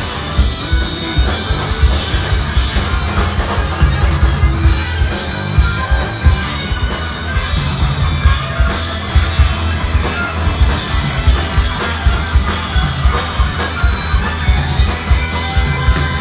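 Live rock band playing loud: electric guitars, electric bass and a drum kit driving a steady beat.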